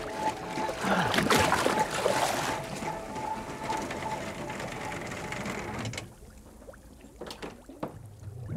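Swimming-pool water splashing and churning as two swimmers duck under, loudest about a second in. About six seconds in the sound drops suddenly to a muffled underwater hush with a few faint clicks.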